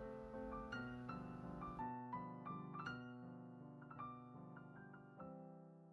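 Soft background piano music: a gentle tune of single notes, each ringing on and fading.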